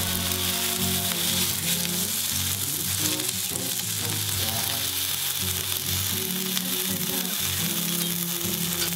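Eggplant slices coated in potato starch sizzling steadily as they fry in oil in a nonstick frying pan. Soft background music plays underneath.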